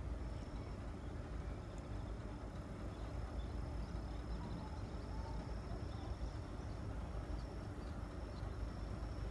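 Outdoor ambience: a steady low rumble with a faint, steady high-pitched insect drone over it.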